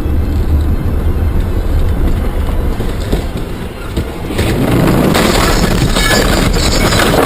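Low vehicle rumble, with a broad rushing noise swelling up over it about four and a half seconds in and staying loud.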